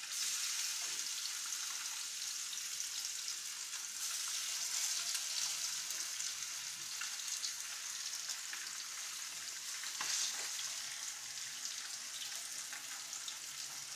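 Seasoned fish fillets frying in hot olive oil in a non-stick pan: a steady sizzle, with a brief louder crackle about ten seconds in.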